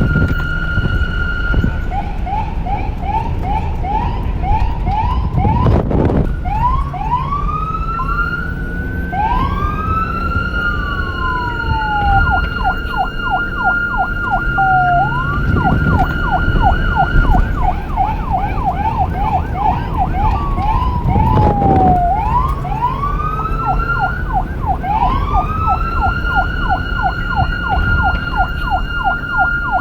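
Police car's electronic siren cycling through its tones: a steady high tone, a fast warbling yelp, long rising wails and a few quick falling glides, over a low vehicle rumble. Two brief thumps cut in, about six seconds in and again past twenty seconds.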